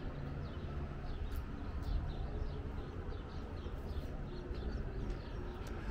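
Small birds chirping repeatedly, many short high chirps, over a low steady rumble.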